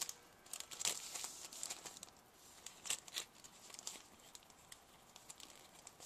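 Faint crinkling and rustling of a sheet of foam pop dots being handled and peeled from its backing, with a few small sharp clicks.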